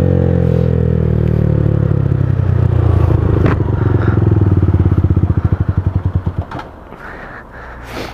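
Honda CBR125R's single-cylinder four-stroke engine dropping steadily in pitch as the bike slows in gear, lugging down into separate slow firing beats and then stalling about six and a half seconds in. With the clutch cable snapped, the engine cannot be disengaged, so it stalls as the bike comes to a stop. A short clunk comes near the end.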